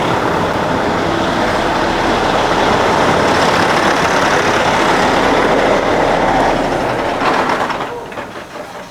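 A loud steady rushing hiss from a Cummins ISX diesel's pressurised cooling system venting as the engine runs, falling away about eight seconds in. The cooling system is building pressure extremely quickly, a sign of combustion gas getting into the coolant, most likely through a blown head gasket.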